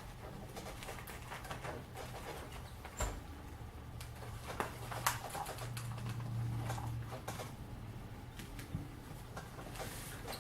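Scattered light clicks and taps of small parts and screws being handled, over a low steady hum that swells for a while around the middle.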